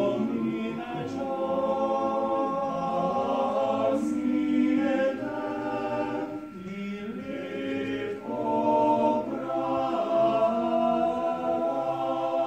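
Male a cappella vocal octet singing in close harmony, held chords shifting together. The singing softens briefly around the middle, with one voice sliding in pitch, then swells up again.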